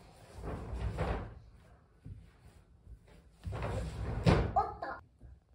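Household knocks and rustling: two stretches of noise, with one sharp knock about four seconds in.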